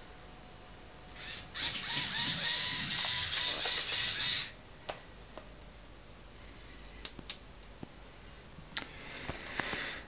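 Small electric drive motors of a homemade wireless car whirring for about three seconds, then two sharp clicks a third of a second apart.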